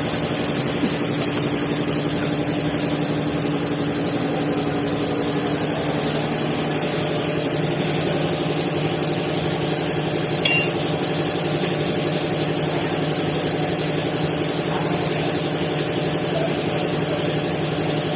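An engine idling steadily with an even hum, and one sharp click about ten and a half seconds in.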